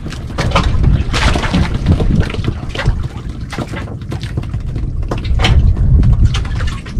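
Wind buffeting the microphone and water slapping against the hull of a small outrigger boat at sea, with a steady low rumble and scattered short knocks and splashes.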